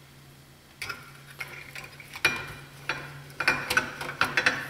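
Metal clutch parts clinking and clicking in irregular knocks as a clutch disc and pressure plate are handled and set onto the flywheel, over a low steady hum.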